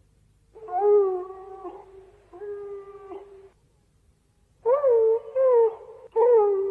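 Minilla's cry sound effect from the Showa-era Godzilla films: four pitched, animal-like cries, each about a second long, coming in two pairs. The pitch holds fairly steady with a slight waver.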